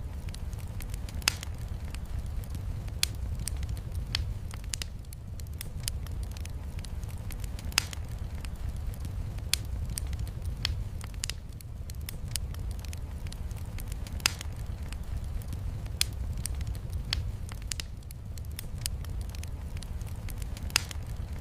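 Wood fire in a fireplace crackling with frequent sharp pops, a few of them much louder than the rest, over a steady low rumble of heavy rain.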